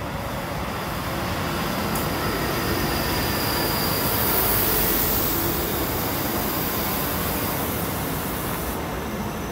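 ScotRail Class 334 Juniper electric multiple unit passing close by at a station platform. Its wheels and running gear make a continuous rush that swells to its loudest about halfway through, with a faint high whine above it.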